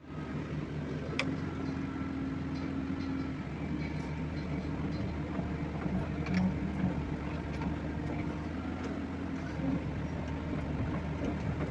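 Excavator engine running steadily with a low drone, with a couple of sharp clicks as it works over plastic drink bottles.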